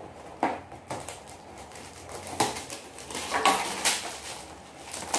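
A small cardboard box of coffee sachets being opened and handled by hand: scattered sharp clicks and knocks with short rustles of paperboard and packaging, busiest in the second half.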